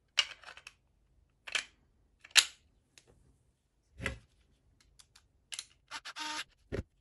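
Hard plastic parts of a 3D-printed gear train clicking and clacking as gears and housing pieces are handled and fitted, about half a dozen separate knocks, the loudest about two and a half seconds in. Near the end a Bosch cordless screwdriver gives a short buzz as it drives a screw, followed by a dull knock.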